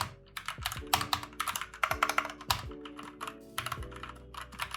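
Fantech Atom 96 mechanical keyboard being typed on quickly, an irregular run of key clacks several per second, with background music playing under it.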